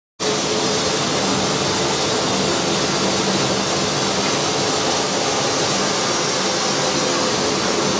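Small roller flour mill running steadily, grain passing through it, a dense even whir with a low steady hum underneath. The sound drops out for a split second at the very start.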